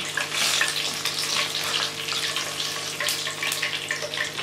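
Whole dried red chillies, cinnamon and cumin seeds sizzling and crackling in hot oil in a non-stick kadhai as they are stirred: the tempering of the whole spices at the start of a dal.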